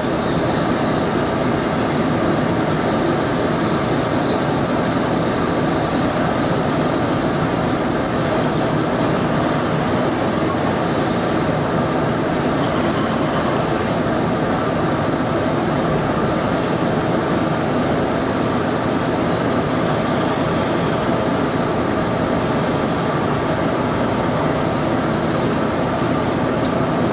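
Aerosol can of foaming coil cleaner spraying in a steady, continuous hiss onto a refrigeration condenser coil's fins.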